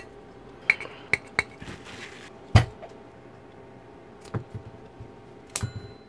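Scattered clinks and knocks of dishes and cutlery being handled on a table, with one louder knock about two and a half seconds in and a short ringing clink near the end.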